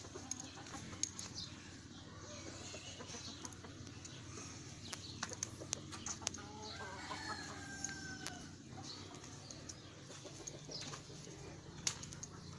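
Chickens clucking, with a rooster crowing about halfway through, over a steady low hum and scattered sharp clicks.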